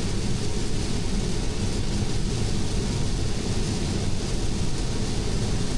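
Steady tyre and road noise from a 2020 Tesla Model 3 driving at about 95 km/h on a rain-soaked highway, heard inside the cabin as an even rushing noise.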